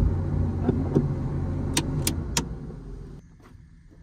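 Car running with a low rumble that fades, with several sharp clicks around the middle; the sound drops away suddenly about three seconds in.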